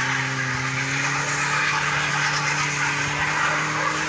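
A motor vehicle's engine running hard under load on a steep climb, its pitch creeping slowly upward, with a loud rushing noise over it.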